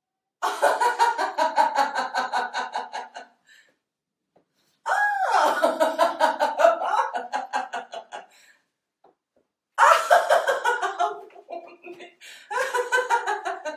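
A woman laughing in four bouts, each a rapid run of ha-ha pulses, with short silences between. This is the deliberate, acted laughter of a laughter yoga exercise. The second bout opens with a high exclamation that rises and falls.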